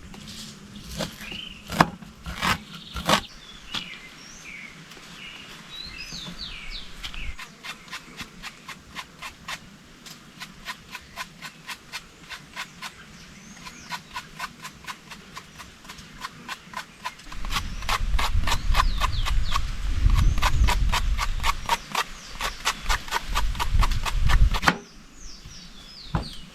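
Rapid, even knocking, about four or five strokes a second, with birds chirping over it. A low rumble comes in from about two-thirds of the way through and stops near the end.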